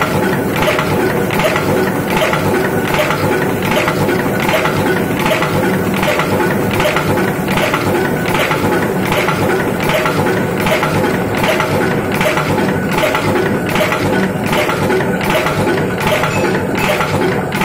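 Mechanical power press running continuously with a pneumatic air feeder advancing steel strip into the die: a regular metallic clatter of press strokes, roughly two a second, over a steady machine hum.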